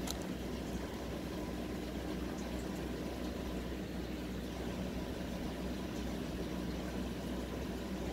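Steady low hum under an even hiss of background noise, with one faint click right at the start.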